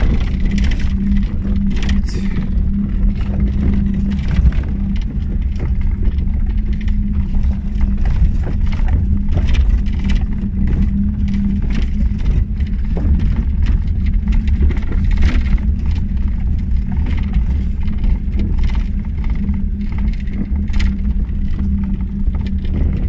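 Daewoo Tico's small three-cylinder engine running as the car drives over a rough dirt track: a steady engine and road drone with frequent knocks and rattles from the bumps.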